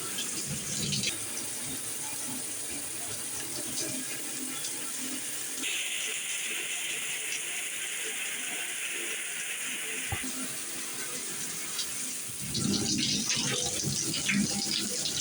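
Water spraying steadily from a Delta 75641 plastic six-setting showerhead, the spray sound shifting between settings. A single click about ten seconds in, where the sound changes, is the face clicking into a new spray mode; the spray turns splashier near the end.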